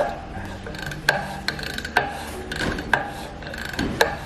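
Mechanical clicking and ratcheting from a road bike being assembled: a sharp metallic click about once a second, with lighter ticking in between.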